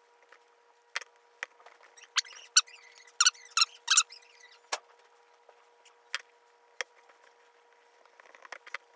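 Hobby knife cutting paper on a cutting mat: a few quick scraping strokes about two to four seconds in, with scattered sharp clicks and taps of the blade and paper.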